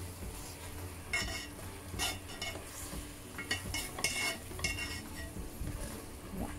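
Slotted spatula stirring rice cakes and vegetables in an enamelled cast-iron pot. Short scrapes and knocks against the pot come about once a second, over a faint sizzle of the braise.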